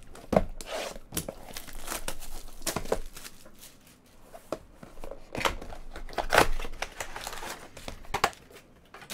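Plastic shrink-wrap being torn off a trading-card hobby box and the box opened, with crinkling of the wrap and foil packs in irregular bursts.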